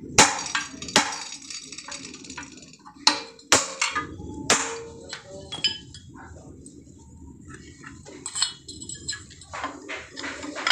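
Hammer blows on steel as a reconditioned ball joint's housing is staked to lock it: about five sharp, ringing strikes in the first five seconds, then lighter metallic clinks.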